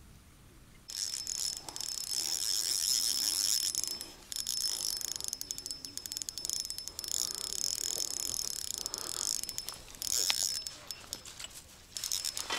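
Spinning reel being cranked, a high whir of its gears and line roller as the spoon lure is retrieved, starting about a second in and stopping briefly a few times as the cranking pauses.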